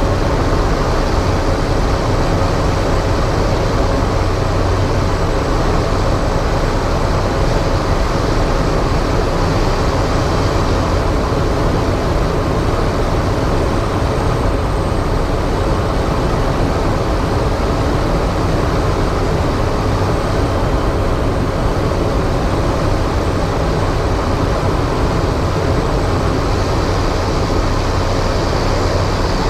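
Cessna 208 Caravan's PT6A turboprop engine and propeller heard from inside the cockpit, running steadily with a low drone and wind noise on final approach to landing.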